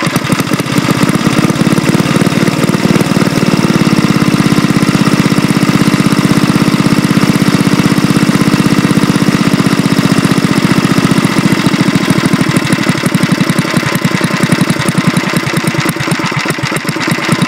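Old 5 hp Tecumseh single-cylinder snowblower engine running at idle on its first test run, an even rapid firing beat through its short exhaust pipe. Its speed shifts a little a few seconds in as the carburetor is set with a screwdriver.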